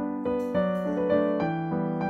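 Background piano music: a melody stepping from note to note every few tenths of a second over lower held notes.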